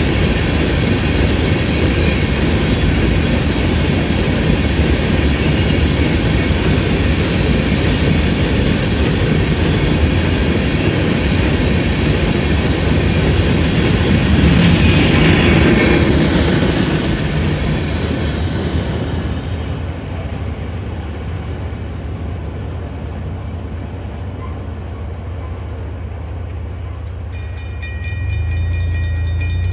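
Freight train passing a road crossing at speed, its wheels clattering over the rail joints; the noise peaks as the last cars go by about fifteen seconds in, then falls away. Near the end the grade-crossing bell rings in a quick repeating pattern as the gates rise.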